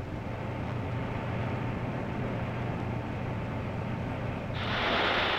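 Steady low machinery hum, joined about four and a half seconds in by a sudden loud rush of air from a wind tunnel being run.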